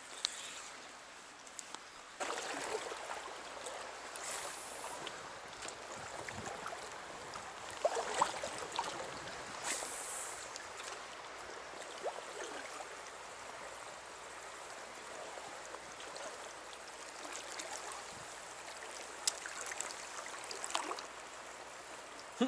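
Small stream running and gurgling over rocks, a steady rush of water that grows louder about two seconds in, with occasional short splashes.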